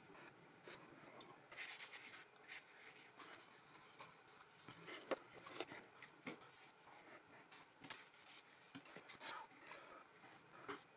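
Paintbrushes stroking wet paint across paper: faint, scratchy brushing, with a few short sharp taps, the sharpest about five seconds in.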